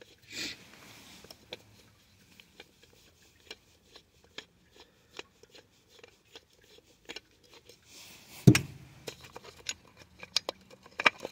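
Handling noise of hands working on an engine's distributor cap and plug wires while the phone filming it is moved: scattered small clicks and taps, with one sharp knock about eight and a half seconds in.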